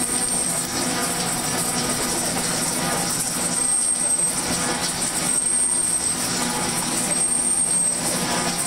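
Smith & Mills metal shaper running, its ram stroking back and forth as the tool cuts aluminum, over a steady motor and drive hum. A short, high, thin whine comes and goes about every second and a half to two seconds with the stroke.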